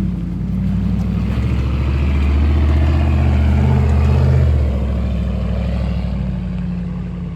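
Off-road 4x4 truck engine revving hard under throttle as the truck drives over an obstacle, its note climbing in the first second, holding loudest for a few seconds, then easing off toward the end.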